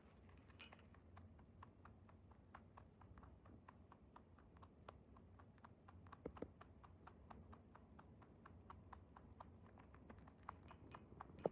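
Netherland dwarf rabbit chewing its food: a faint, fast, even run of small crunching clicks, about five a second.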